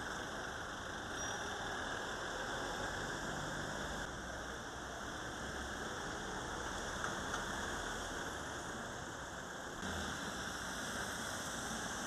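Steady, even hiss of outdoor street ambience with a low background rumble, no distinct events.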